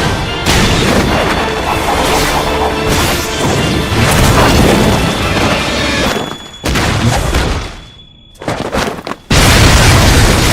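Anime battle sound effects: heavy booming impacts and crashes layered over a dramatic orchestral score. The sound thins out from about six seconds in to a brief hush around eight seconds, then a loud crash cuts back in just after nine seconds.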